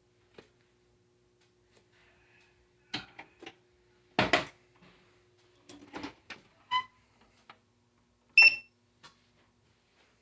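A run of sharp clicks and knocks, the loudest a little under halfway through, with two short beeps, the louder one about three-quarters of the way in, over a faint steady hum.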